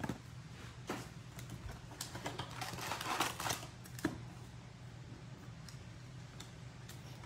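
Foil trading-card packs (2019/20 Upper Deck Series 1) being handled, lifted out of their box and set down, with light crinkling and soft taps. The rustling is busiest in the first four seconds and thins out after.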